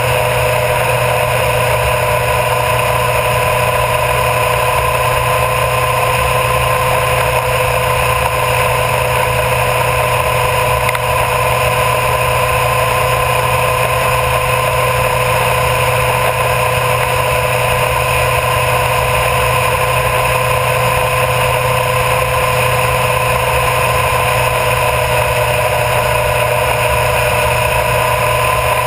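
Honda CBR1000RR Fireblade's inline-four engine running at a steady speed while cruising, with a constant rush of road and wind noise.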